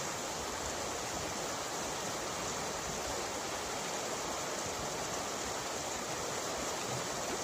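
Shallow, fast river rushing over a rocky bed, a steady, even roar of white water.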